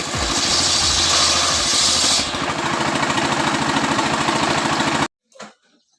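Stihl chainsaw running hard, cutting coconut wood. A loud hiss drops away about two seconds in while the engine keeps running, then the sound cuts off abruptly near the end.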